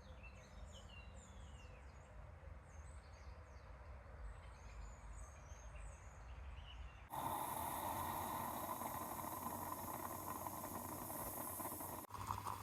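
Small birds chirping faintly over a low outdoor rumble. About seven seconds in it cuts abruptly to a louder, steady rushing noise.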